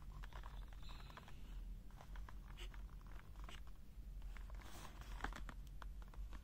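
Cardboard screwdriver box with a clear plastic window being handled and turned in the hands: faint rustles, scrapes and small clicks of card and plastic, over a low steady hum.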